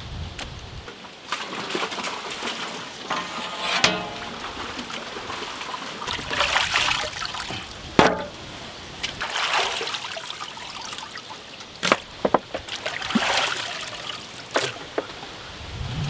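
Water sloshing and splashing as hands scrub raw whole chickens in a large aluminium pot of water, in irregular swells, with a few sharp knocks in between.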